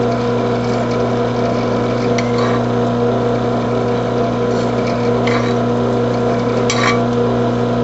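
Drill press running steadily with a steady hum while a file is held against the spinning nose of a swaged bullet, smoothing its point; the file scrapes continuously, a little louder three times.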